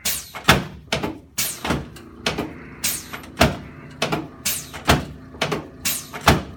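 A run of sharp knocks, about two a second and not quite evenly spaced, each ringing briefly.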